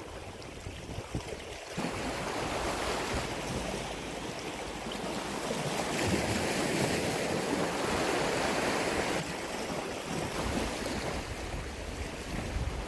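Sea waves washing against a rocky shore, swelling from about two seconds in and loudest in the middle before easing off.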